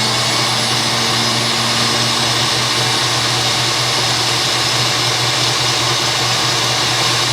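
KitchenAid Classic Plus stand mixer running steadily at its top speed, 10, with the beater attachment fitted: a loud, even motor whir with a steady low hum.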